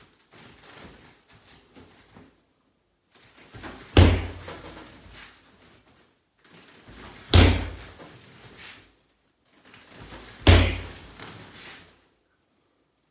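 Three sharp thuds about three seconds apart from a karateka performing techniques in a gi on a mat, each with a brief echo.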